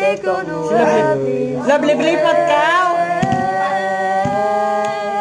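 A voice singing a melody that bends up and down, then holds one long steady note through the second half.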